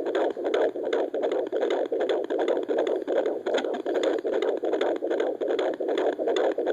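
Fetal heartbeat of an 18-week baby through a fetal Doppler's speaker: a fast, even run of noisy pulses over steady hiss.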